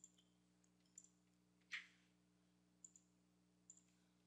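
Faint computer mouse clicks, about four spread over the few seconds, with one soft puff of noise near the middle, over a faint steady low hum.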